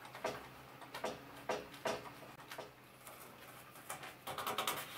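Masking tape being pulled off its roll and pressed onto wooden mast stations by hand: a series of short quiet crackles and taps, with a quicker crackling run near the end.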